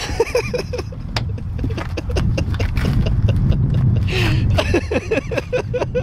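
Two people wrestling against a parked SUV: scuffling knocks and scrapes, with quick runs of short strained vocal sounds near the start and again over the last two seconds, over a low rumble of wind on the microphone.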